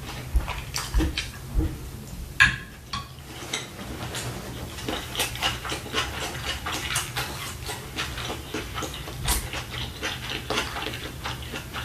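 Close-miked chewing of a mouthful of shrimp fried rice, a run of many short irregular mouth clicks and smacks.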